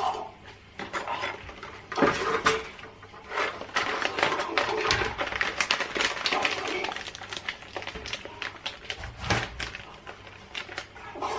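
Coffee beans rattling and clicking as they are spooned and poured into the metal bowl of an electric blade coffee grinder, with the foil coffee bag crinkling as it is handled and folded shut near the end.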